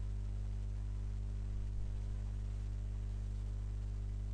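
Steady electrical mains hum on the recording: a low buzz with evenly stacked overtones and a faint hiss underneath.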